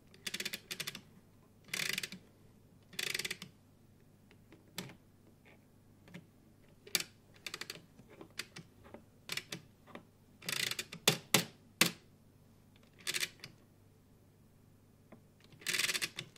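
Plastic Lego Technic freewheel mechanisms turned by hand. The parts ratchet and click in short rasping bursts of about half a second and in single sharp clicks, with a dense cluster of clicks about eleven seconds in.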